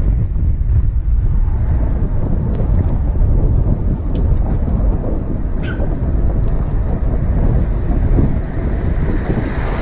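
Wind buffeting a helmet-mounted camera's microphone on a moving e-bike: a steady, loud low rumble.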